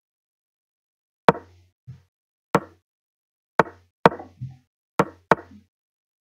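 Chess website's piece-move sound effects: eight short, sharp wooden knocks in about four seconds as moves are played in quick succession in a blitz game.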